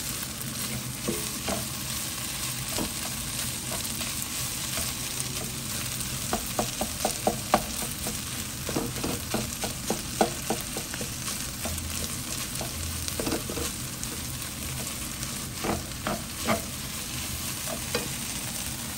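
Minced meat, egg and carrot sizzling in a nonstick wok while a spatula stirs and turns them, with quick runs of clicks and knocks from the spatula against the pan in the middle and again near the end.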